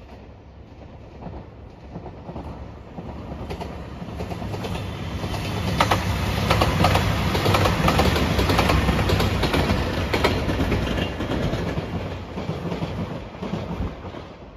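JR Shikoku 2700 series diesel limited express train passing at speed: it swells in from about three seconds in, is loudest midway with a quick run of wheel clicks over the rail joints, then fades away.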